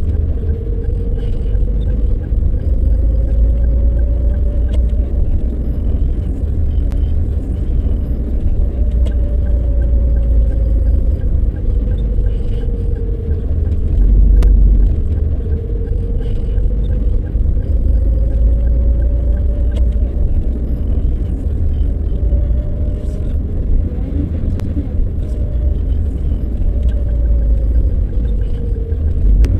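Car driving slowly on the road, a steady low rumble under a drivetrain whine that rises and falls gently as the car eases off and picks up a little speed again.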